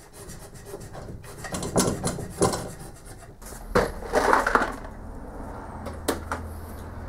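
Workbench handling noises: tools being picked up and set down with small clatters and scrapes, a louder rough scraping rush about halfway through, and a sharp knock near the end as a plastic parts organiser is put down on the bench.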